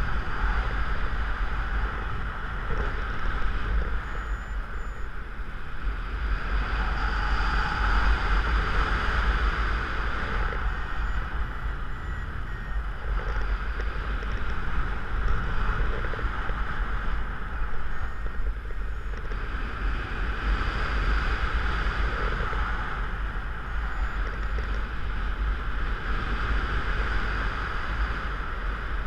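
Wind buffeting the microphone of a camera mounted on a paraglider harness in flight: a steady low rumble with a hiss that swells and fades every few seconds.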